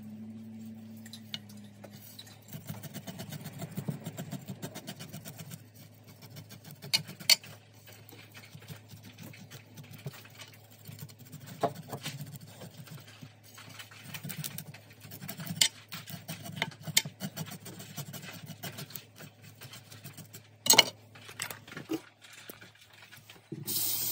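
A knife scraping the scales off a fish on a cutting board, in quick rasping strokes with now and then a sharp click of the blade. Near the end a tap starts running into a sink.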